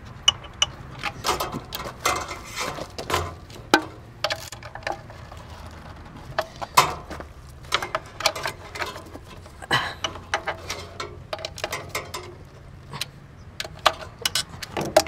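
Socket ratchet on a long extension clicking in short runs as the bolts that clamp a pool pump's housing together are tightened one after another.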